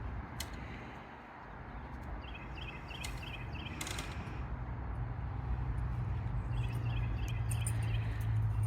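Outdoor yard ambience with a bird singing two runs of quick, high repeated chirps, over a low steady hum that grows louder toward the end, with a few light clicks.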